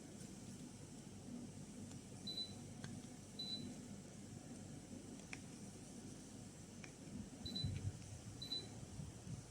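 Daikin split air conditioner running with a faint steady low hum. Short high pips come in two pairs, each about a second apart, with a few faint clicks.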